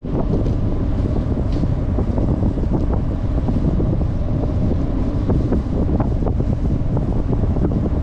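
Strong wind buffeting the microphone: a steady, loud low rumble with small pops.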